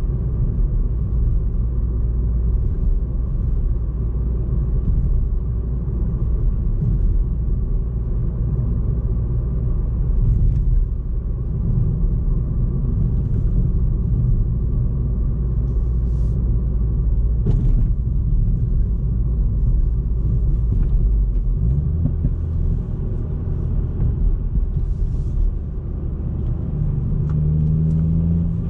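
Ford Fiesta ST MK8's 1.5-litre turbocharged three-cylinder engine running at a steady cruise, a low rumble heard on board. The note changes about 22 seconds in, and near the end it begins to rise as the car accelerates.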